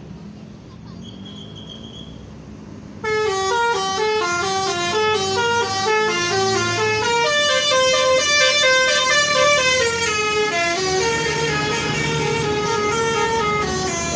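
A bus's Basuri V3 telolet horn plays a fast tune of short notes stepping up and down, starting suddenly about three seconds in over the low hum of the engine.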